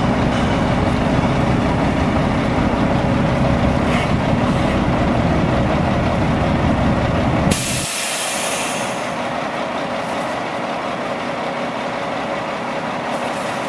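Diesel engine of a Mack RD688S roll-off truck running loudly. Just over halfway through, a sudden burst of compressed-air hiss comes as the engine sound drops away, and the engine runs on more quietly.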